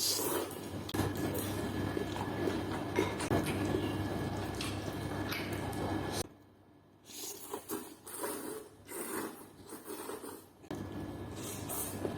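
Wet squishing, dripping and scraping of food being stirred and handled. The sound drops away briefly about six seconds in, then returns as scattered lighter handling noises.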